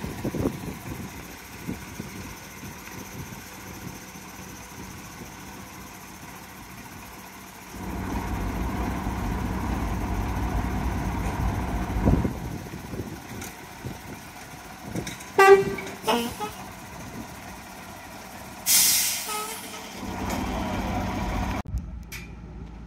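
Heavy truck engine running, louder from about eight seconds in. A few short horn toots come around the middle, then a sharp hiss of air brakes that fades off. The engine runs again near the end.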